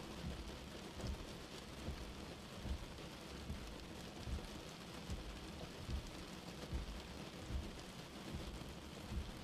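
Steady rain on a car windshield with slow windshield wipers sweeping, a soft low thump from each stroke coming a little more often than once a second.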